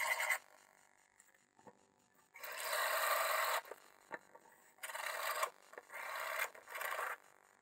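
Cordless drill turning a circle cutter that scrapes through a thin white sheet in separate bursts: a brief one at the start, a longer one of about a second, then three shorter ones close together.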